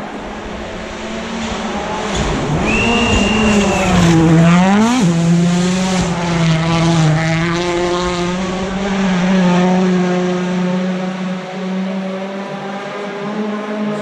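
Rally car engine running hard on a gravel special stage, its pitch climbing under acceleration and dropping sharply about five seconds in, then wavering as it carries on. A brief high whistle sounds for about a second just before the climb.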